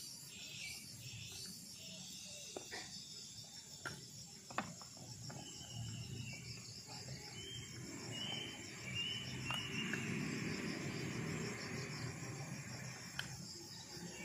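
Puppies eating from a plastic tub: scattered sharp clicks and small knocks of chewing and of the tub being nudged, over a steady high chorus of insects.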